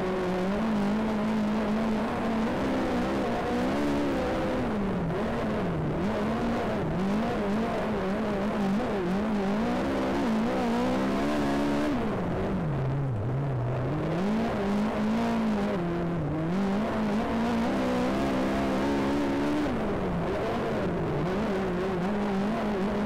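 Race car engine at speed, its revs rising and falling every few seconds as it accelerates and lifts off, with the deepest drop in revs about two thirds of the way through.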